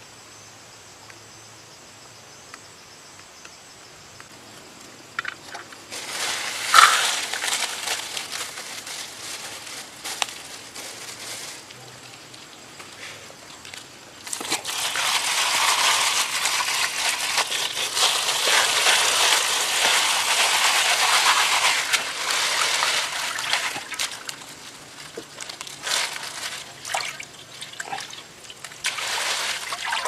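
Diving beetles being washed in a plastic colander over a metal basin of water. Water sloshes and splashes from about six seconds in, rushes steadily for several seconds just past the middle, then slops in short separate splashes near the end. Before the water starts there is only faint outdoor ambience with a steady high insect drone.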